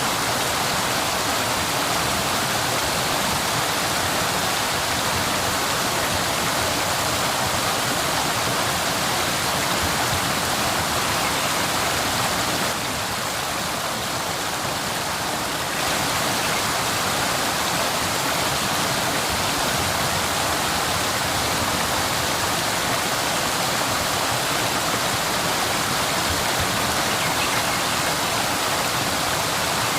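Waterfall: a steady rush of falling water, briefly a little quieter for about three seconds near the middle.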